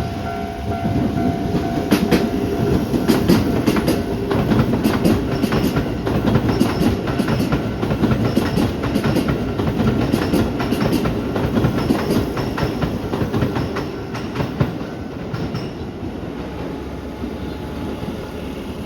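Keisei 3700 series electric commuter train passing over a level crossing, its wheels clicking rapidly over the rail joints above a steady rumble, fading near the end. The level-crossing warning bell rings at the start and stops about two seconds in.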